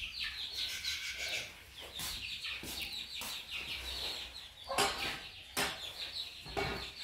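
Chickens clucking in a quick run of short calls, with a few sharp knocks about five and six seconds in.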